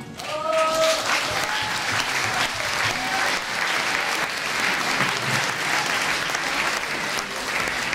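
Audience applauding, with a short cheer near the start.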